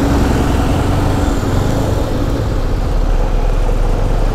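CFMoto 250NK's single-cylinder engine running steadily amid city traffic noise.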